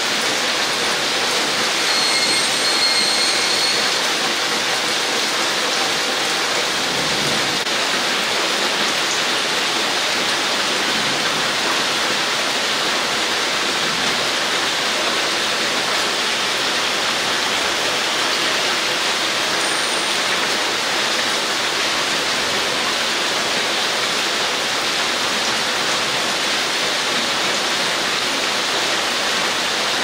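Heavy rain falling steadily on tree foliage, a continuous even hiss of water.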